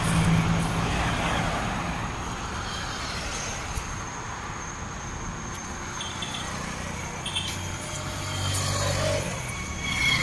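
A motor vehicle's engine running: a steady low hum whose pitch shifts a little, with traffic-like background noise.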